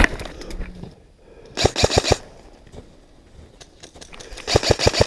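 Airsoft rifle firing in full-auto bursts: a short burst of about six shots roughly one and a half seconds in, and a longer burst starting near the end, at about ten shots a second. A single knock comes at the very start.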